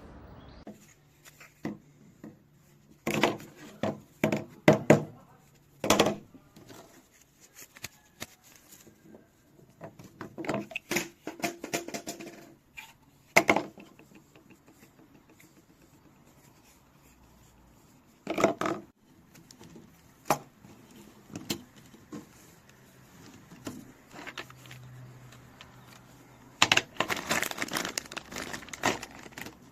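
Scattered knocks, clicks and rustling of objects being handled, in short clusters with quiet stretches between; no motor is running.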